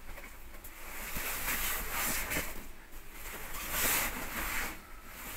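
Banarasi silk brocade saree rustling as it is handled, lifted and spread out by hand. The rustle swells twice, about two seconds in and again about four seconds in.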